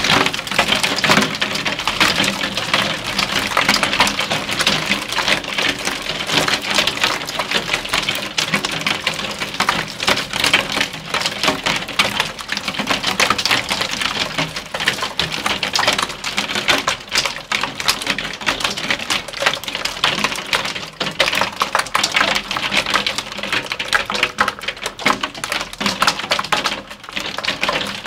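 Hailstorm: a dense, continuous clatter of hailstones pelting down.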